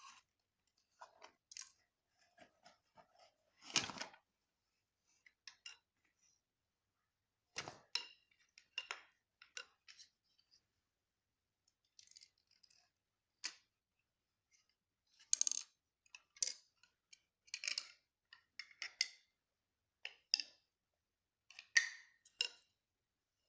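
Wooden spoons and their packaging being handled: scattered clicks, taps and light knocks at irregular intervals. The loudest knocks come about 4 seconds in, a little past the middle, and near the end.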